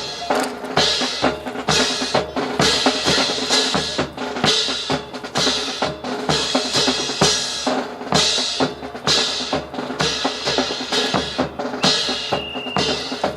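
Steady, rhythmic drumming: a dense run of sharp beats with recurring bursts of hiss.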